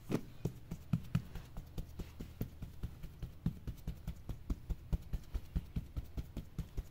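Rapid, rhythmic chopping on a wooden board, about four to five knocks a second, some strokes harder than others.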